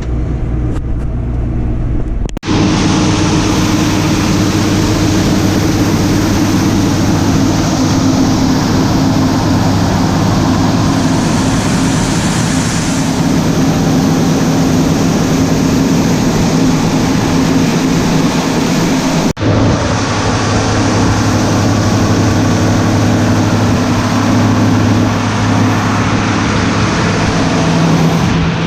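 Heavy farm machinery engine running steadily and loudly, a deep hum under a dense mechanical noise. The sound changes abruptly twice: about two seconds in, when it gets louder and harsher, and again about two-thirds of the way through.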